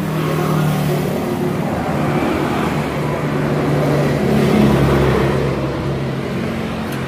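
A motor vehicle engine running close by, its hum wavering and growing louder to a peak a little past the middle, then easing off.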